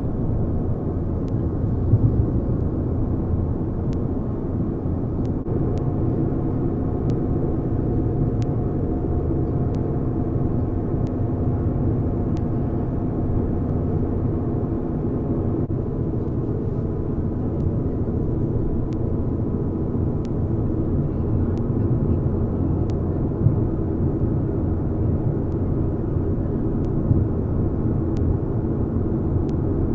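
Steady road and engine noise of a moving car, heard from inside the cabin: an even low rumble with a constant hum that does not change.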